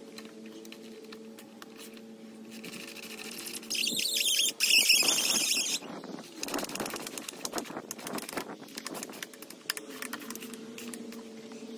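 Cordless power driver running lag bolts into the gazebo's frame beams: a loud, high-pitched burst of about two seconds starting about four seconds in, followed by a few seconds of irregular clicks and knocks as the parts are handled, over a steady low hum.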